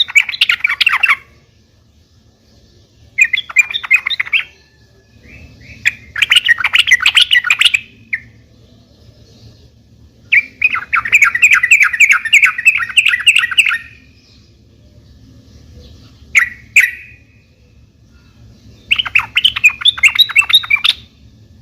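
Yellow-vented bulbul song: six bouts of rapid, bubbly chattering notes, separated by pauses of one to two seconds. The longest bout, in the middle, lasts about three and a half seconds.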